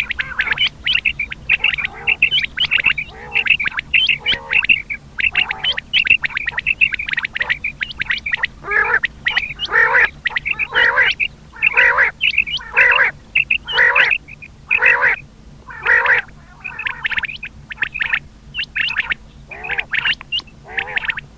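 Common quails calling over and over: short pitched calls, about one or two a second with brief gaps, over a faint steady low hum.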